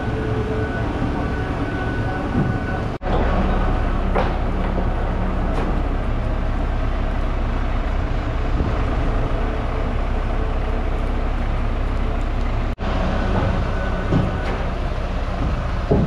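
Gantry crane running on its rails while carrying a suspended log: a steady mechanical rumble with a motor hum and a few short clanks. The sound drops out briefly twice.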